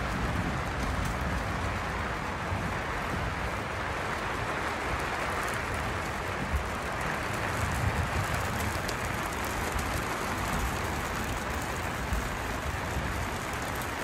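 Steady rain pattering on a yurt's fabric roof, heard from inside, with a deep rumble underneath and a few sharper drop ticks.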